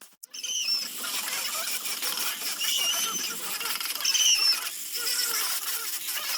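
Zelkova wood being sanded with sandpaper: a continuous gritty rasping made of many small scraping strokes, with three short high squeaks.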